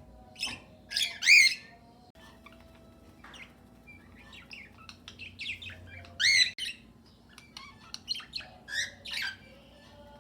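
A flock of cockatiels and budgerigars calling in an aviary: loud squawks about a second in and again around six seconds in, with many shorter chirps between them.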